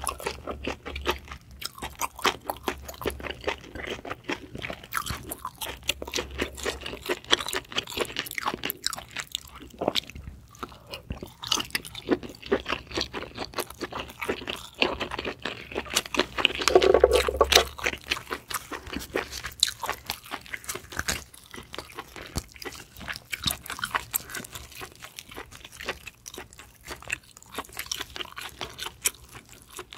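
Close-miked wet chewing, biting and lip-smacking of a person eating giant Yesso scallop meat, the small mouth clicks coming thick and continuous. A short louder hum about halfway through.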